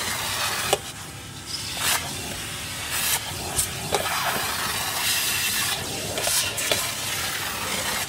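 Vintage Nilfisk GA70 vacuum cleaner running, air hissing through a crevice tool drawn along the carpet edge, the suction sound dipping and surging as the nozzle moves. A few sharp knocks of the tool against the skirting board or carpet are scattered through it.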